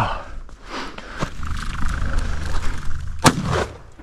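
Double-barrel shotgun fired at quail, a sharp blast about three seconds in followed by a second crack a moment later, after a few scuffs and knocks of movement over rocky, snowy ground.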